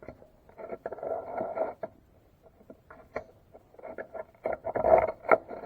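Small screwdriver scraping old grease and grime out of the inside of an aluminum utility-knife handle: two runs of short scratchy strokes with light clicks, with a pause between them.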